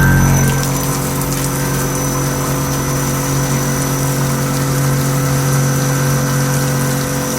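Soviet 'Volna' semi-automatic washing machine running, its electric motor giving a steady hum.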